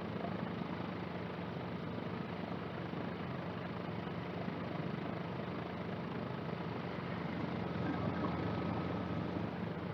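Cabri G2 helicopter's four-cylinder Lycoming piston engine and rotor running steadily at ground idle.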